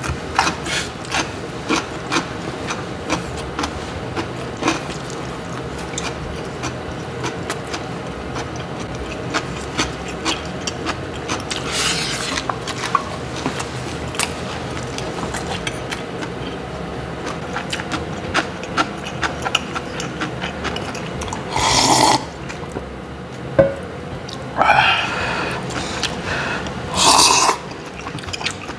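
Close-up eating sounds: chewing, and wooden chopsticks clicking and scraping against metal lunch tins. Several louder slurps near the end, from doenjang soup eaten out of a thermos.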